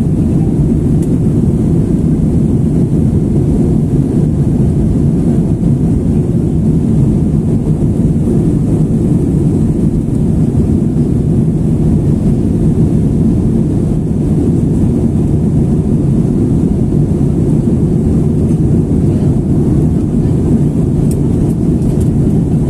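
Steady low roar of an airliner's jet engines and rushing air, heard inside the passenger cabin during the climb after takeoff.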